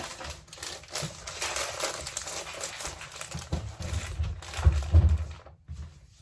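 Plastic packaging rustling and crinkling as it is handled, with a few dull low thuds between about three and a half and five seconds in, the loudest near five seconds.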